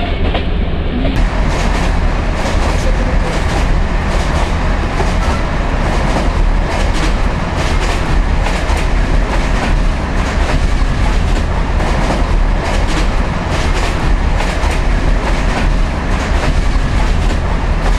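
Loud, steady low rumble of a moving vehicle, overlaid with a continuous clatter of rapid knocks and rattles.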